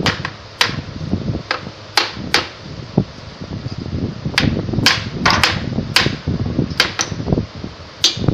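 Sharp, irregularly spaced taps and knocks, about fifteen in eight seconds, from pieces of wood being fitted and knocked together in frame-making.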